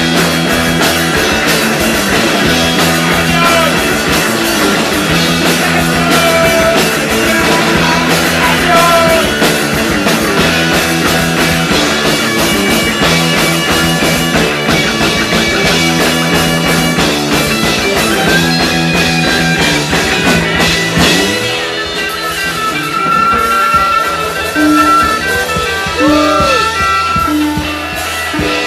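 Live rock band playing loud through the club PA: electric guitars, a drum kit and keyboard. About two-thirds of the way through, the full band drops back to a sparser, repeating guitar figure.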